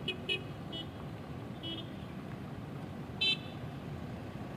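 Car horns giving short toots: several quick ones in the first two seconds and a louder one about three seconds in, over a steady rumble of traffic.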